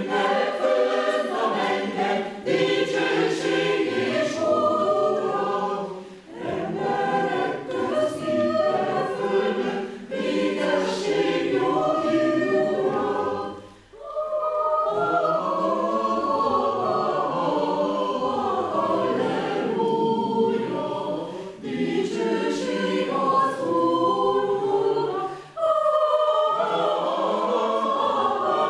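Mixed choir of men and women singing a hymn-like choral piece in several phrases, with brief breath pauses between them.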